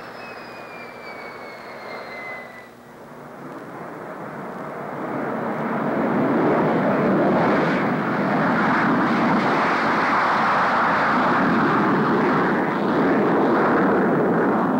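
Jet engine of a Lockheed F-94 Starfire interceptor on takeoff: a high turbine whine falls in pitch over the first couple of seconds, then the jet's roar builds from about four seconds in and holds loud as the plane rolls and lifts off.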